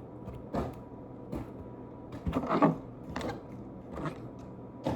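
Squishy toys being dropped one at a time into a basket: a series of short soft knocks and rustles at uneven intervals, about six in all, the loudest about two and a half seconds in.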